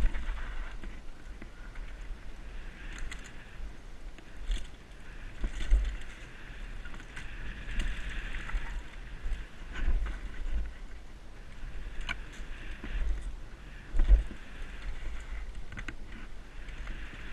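Wind rushing over a helmet-mounted camera's microphone and tyres running on a dirt trail as a mountain bike descends at speed, with knocks and rattles from the bike hitting bumps; the sharpest knocks come right at the start and about fourteen seconds in.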